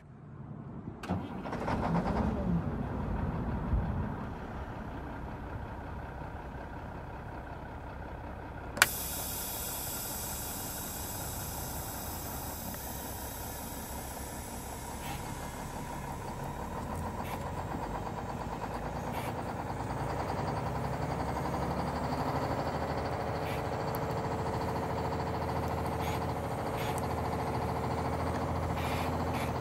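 A steady mechanical running hum that slowly grows louder, after a short rising sound in the first few seconds and a sharp click about nine seconds in.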